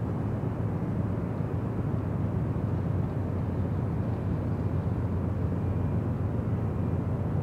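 Steady low rumble of distant engines, even and unbroken.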